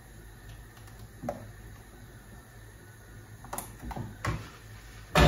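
Kitchen clatter while cooking: a few light clicks and knocks of utensils or cookware over a low steady hum, with a louder knock near the end.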